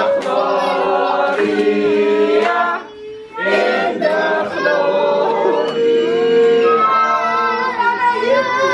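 A group of people singing a song together, with long held notes and a short break about three seconds in.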